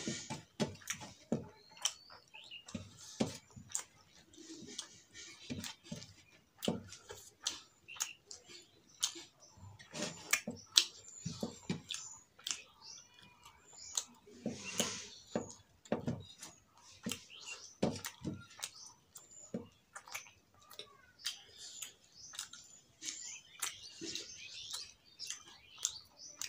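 Close mouth sounds of eating rice and fish curry by hand: chewing and lip smacking, heard as many sharp wet clicks. Birds chirp faintly in the background at several points.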